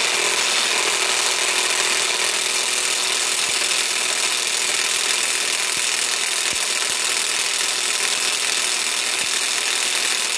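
Hercules HCB84B2 half-inch compact cordless impact wrench hammering steadily in reverse on a tightly torqued 1-1/2-inch hitch-ball nut, which does not break loose.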